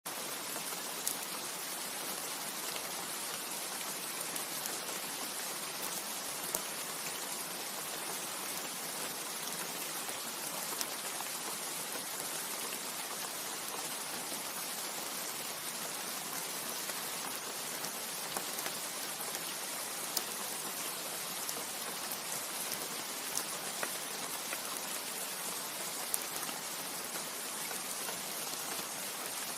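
Steady rain falling on leaves: an even patter with single louder drops ticking out every second or so.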